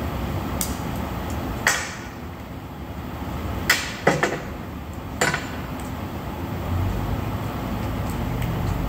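Sharp metal knocks and clinks, about five spread over a few seconds, as hand tools work on the end of a large three-phase electric motor during disassembly, over a steady workshop background; a low drone comes in near the end.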